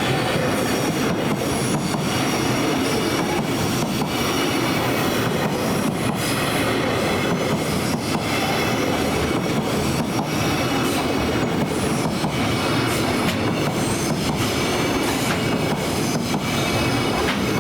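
Freight train of Koki container wagons rolling past at steady speed: a continuous rumble of steel wheels on rail, with wheels clicking over the rail joints and thin high tones coming and going.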